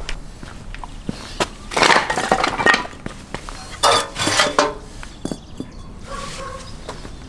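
Scraping and clinking of hard ceramic and wood pieces in two short bursts, about two seconds in and again about four seconds in, with scattered single clicks. The later burst comes as the ceramic vent plug at the base of a clay tandoor oven is worked loose.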